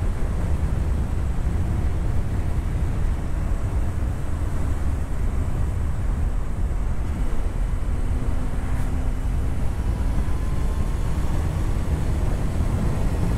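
Yamaha Fazer motorcycle riding steadily at road speed, engine running under heavy wind rumble on the microphone, with a faint rising tone about ten seconds in.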